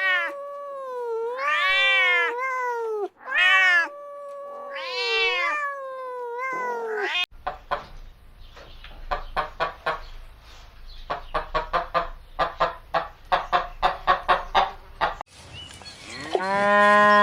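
A cat meowing repeatedly, several drawn-out rising-and-falling meows. After a cut comes a quick run of short, evenly spaced pulses over a low rumble, and near the end a cow starts a long moo.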